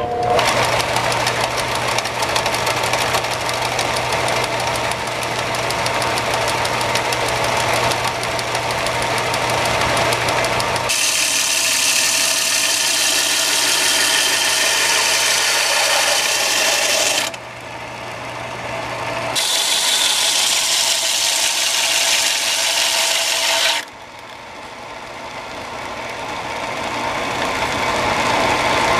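Benchtop belt sander with a coarse 24-grit belt starting up and running with a steady motor hum, then grinding a laminated hickory axe-handle blank for heavy stock removal. The loud grinding drops off abruptly twice and builds back up.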